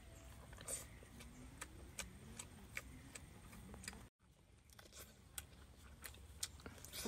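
Faint eating sounds: scattered small clicks and smacks from chewing braised pork skin and from chopsticks against a bowl, with a brief cut to silence about four seconds in.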